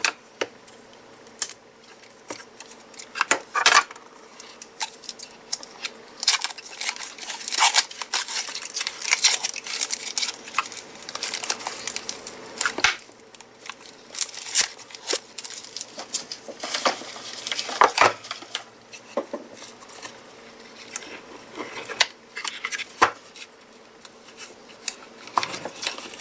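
Hands working apart the cardboard-wrapped cells and plastic parts of a NiCd power-tool battery pack: irregular clicks, knocks, scraping and tearing.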